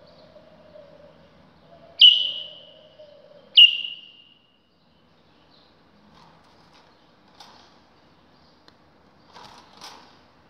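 White-eared bulbul giving two loud, sharp calls about a second and a half apart, each dropping in pitch as it fades. Faint rustling and clicks follow near the end as the bird moves about the cage.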